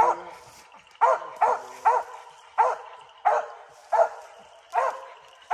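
Squirrel dog barking treed, a steady run of sharp barks about one to two a second, the sign that she has a squirrel up the tree.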